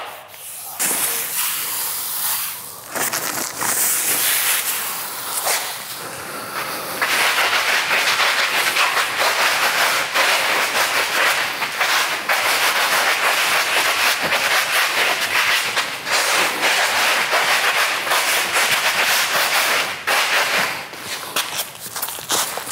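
Something hard being scraped rapidly back and forth across the surface of a vinyl plank, a raspy scratching that grows louder and more continuous about seven seconds in: a scratch test of the plank's wear layer.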